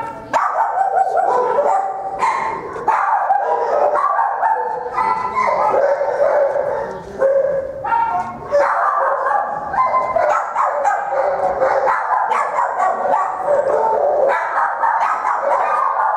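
Shelter dogs barking and yipping together in a dense, unbroken din, calls overlapping from several dogs.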